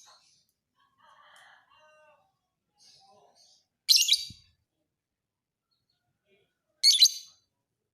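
Lovebird calling in short, shrill chattering bursts: two loud ones about four and seven seconds in, with faint twittering in between.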